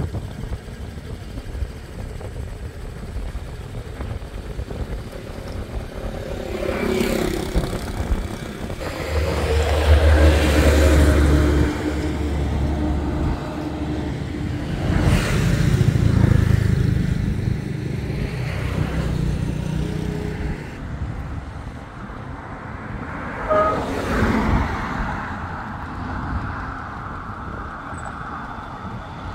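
Road traffic passing close by: vehicles go by one after another, each swelling and fading away, the loudest about ten seconds in.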